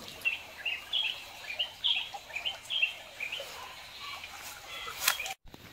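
A bird calling: a quick run of short, high chirps, about three a second, that stops after about three seconds. A single sharp click comes near the end.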